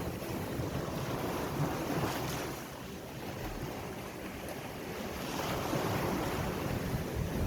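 Ocean surf washing in as a steady hiss, swelling about two seconds in and again near the end, with wind buffeting the microphone.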